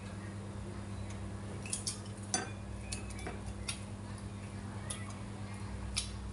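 Metal spoon and chopsticks clinking against ceramic bowls and plates, a handful of separate light clicks, over a steady low hum.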